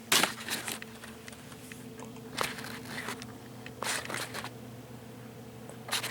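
Clicking and rustling handling noises in four short bursts, over a steady low hum.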